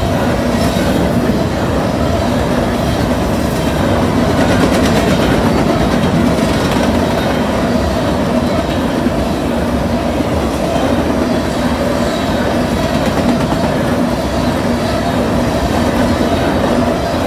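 Covered hopper cars of a fast-moving freight grain train rolling past at speed, with a steady loud rumble and wheels clacking over the rail joints.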